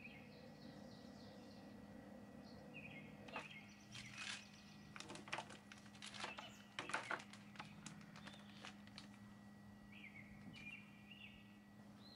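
Faint birds chirping over a low steady hum. In the middle a plastic zip-top bag crinkles and rustles, with a run of soft clicks, as rice kibbeh are handled and packed into it.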